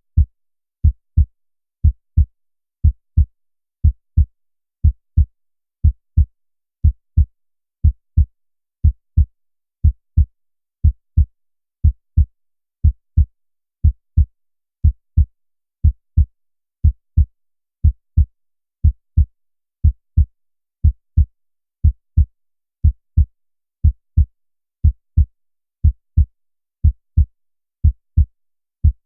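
Heartbeat sound effect: a steady lub-dub of two low thumps close together, repeating about once a second.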